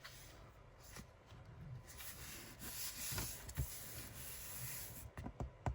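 Hand rubbing and smoothing glued paper down onto a card: a dry, papery hiss over a few seconds, with a few light clicks of handling near the end.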